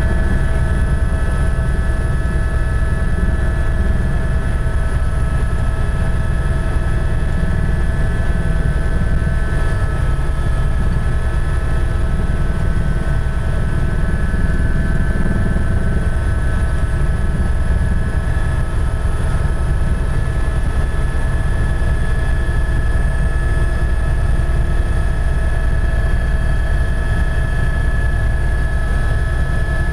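Tour helicopter in flight: a loud, steady drone with a deep rumble and several unchanging whining tones above it.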